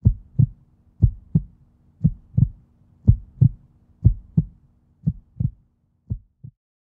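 Heartbeat sound effect: pairs of low thumps (lub-dub) about once a second, seven in all, growing fainter and stopping near the end, over a faint low hum.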